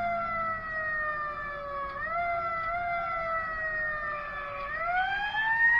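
Fire truck siren heard from inside the cab. Its pitch slides slowly down, jumps up briefly about two seconds in, falls again, then rises steadily near the end.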